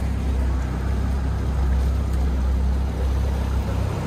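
Fishing boat underway on a river: a steady low rumble of the motor with wind and water noise.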